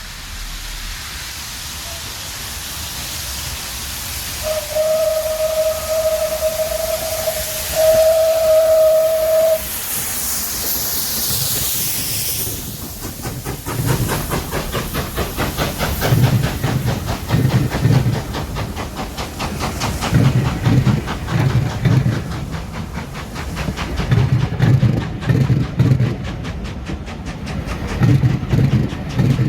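Steam locomotive sounding its whistle in two blasts, then a loud hiss of released steam, then its exhaust beats starting up as it moves off.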